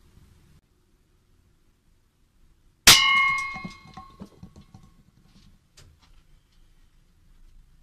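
An air rifle pellet strikes a metal target with one sharp clang that rings on for about a second and a half, followed by a few faint ticks.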